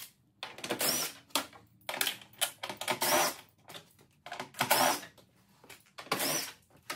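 Socket ratchet clicking in short bursts with brief pauses between, about ten strokes, backing out the 10 mm screws along the top of a car's bumper cover.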